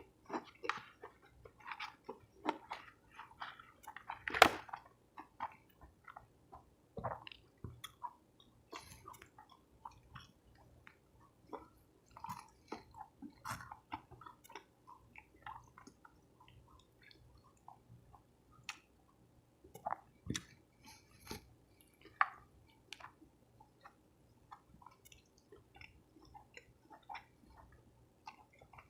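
A person chewing soft tacos close to the microphone: irregular chewing clicks and mouth smacks, with one louder bite or smack about four and a half seconds in.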